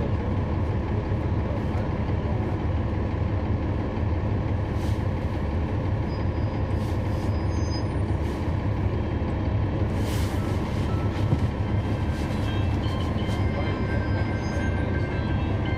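Cummins ISL9 diesel engine of a NABI 416.15 transit bus heard from inside the cabin, running with a steady low drone. A few sharp rattles come through, the loudest about ten seconds in.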